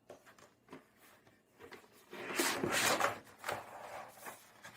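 Light-box side panels being pulled out and handled: a rough scraping slide lasting about a second, a couple of seconds in, with small knocks and clicks around it.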